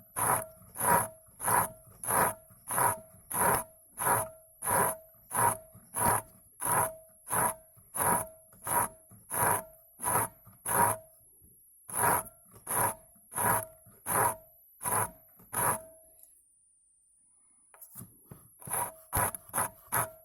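Back-and-forth scraping strokes of a hand tool cutting into the glass of an OSRAM LED filament bulb, about one and a half strokes a second, each with a slight ringing tone. The strokes stop for about two seconds near the end, then start again faster.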